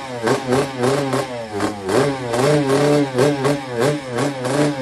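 Yamaha RX King's two-stroke single-cylinder engine revved in a string of quick throttle blips, the pitch rising and dropping back with each one. The bike is set up in 'blayer' spec, tuned for blipping and a rough, growling note.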